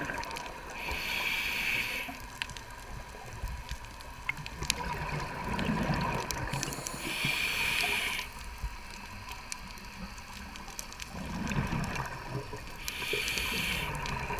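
Scuba diver breathing through a regulator underwater: three inhalations, each a hiss lasting about a second, roughly six seconds apart, with exhaled bubbles gurgling low in between.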